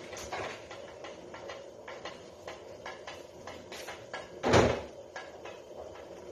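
Small clicks and handling knocks of a plastic cooking-oil bottle being uncapped and poured into a cooking pot, with one louder thump about four and a half seconds in.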